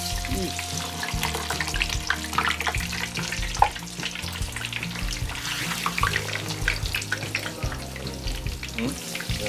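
Breaded chicken nuggets deep-frying in a pan of hot oil: a dense, continuous crackling sizzle, with one sharper click about three and a half seconds in.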